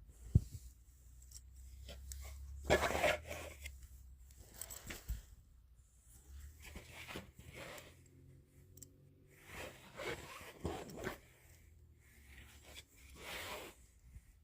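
Rustling and scraping handling noise in bursts of a second or so, with a sharp click about half a second in.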